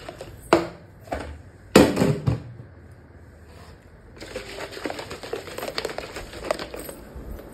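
Plastic shaker bottle being handled and jostled: two sharp knocks in the first two seconds, then a busy run of small clicks and knocks from about four seconds in.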